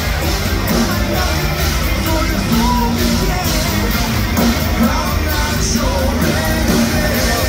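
Heavy metal band playing loud live through a festival PA, with a singer's voice over the band.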